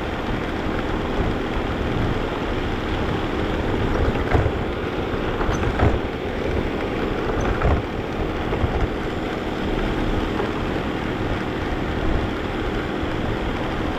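Vacuum cleaner running steadily, with a few brief knocks and bumps as it is pushed along.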